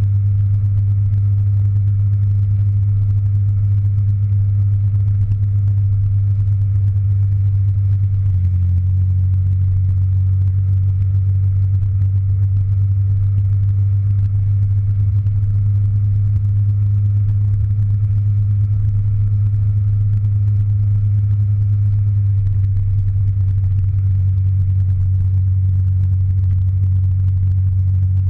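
Motor scooter engine running at a steady cruising speed: a steady low drone, its pitch shifting slightly about eight seconds in and again near 22 seconds.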